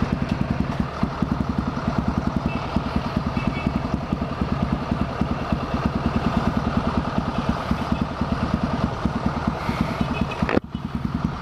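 Honda NX4 Falcon's single-cylinder engine running steadily, with even firing pulses. The level drops briefly near the end.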